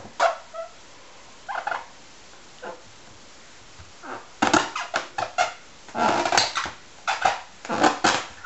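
A baby mouthing and squeezing a latex balloon: short squeaky rubbing noises, with the baby's breathy sounds against the rubber, in quick clusters through the second half.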